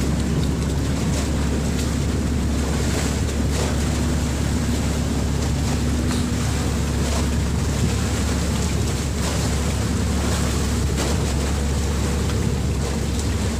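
Outrigger fishing boat's engine running steadily, with wind noise on the microphone and sea water washing around the hull.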